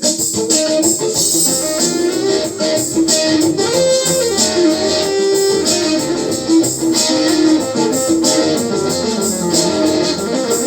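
Instrumental music: a plucked, guitar-like melody over chords and a steady beat.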